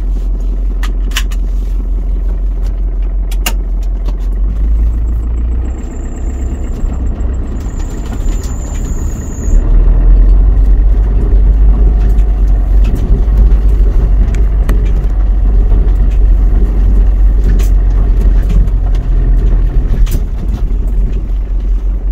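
A vehicle driving on the road: a steady heavy low rumble of engine and road noise, stepping up in loudness about ten seconds in. A faint high whine sounds from about six to nine seconds in.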